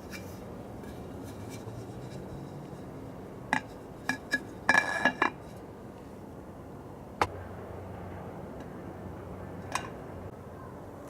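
Sharp metallic clinks and taps as the squirrel baffle and feeder bracket are fitted onto the pipe pole: a few single clicks, then a quick cluster about halfway, then two more spaced-out taps.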